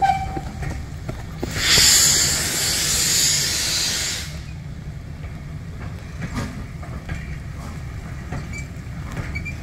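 Steam hissing loudly for about three seconds from a steam locomotive, over the steady low rumble of passenger coaches rolling slowly past. A brief high squeal sounds at the very start.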